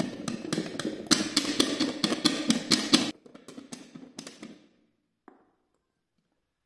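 Sliced sweet potatoes rattling and knocking against the sides of a lidded glass bowl as it is shaken to coat them in oil and seasoning. The rapid knocking stops about three seconds in, with a few last taps after.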